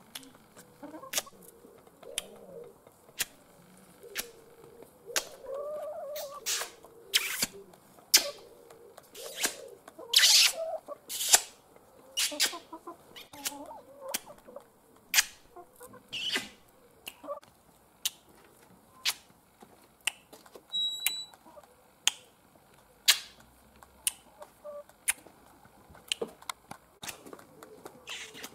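Hens pecking at close range: sharp, irregular beak taps, about one or two a second, with soft low clucking at times.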